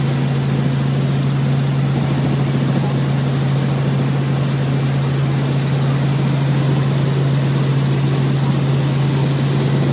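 Small helicopter's engine and rotor in cruise flight, heard inside the cabin as a loud, steady drone with a strong low hum.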